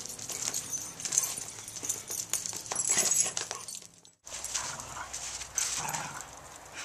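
Dogs in boots scuffing and clicking across concrete. After a sudden break about four seconds in, two dogs play-fight in snow with short whines.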